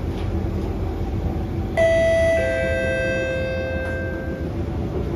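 Two-note descending chime from the train's public-address system, a higher ding then a lower dong about half a second later, ringing and fading over about two seconds. Beneath it, the steady running noise of the Kawasaki & Nippon Sharyo C751B train in motion.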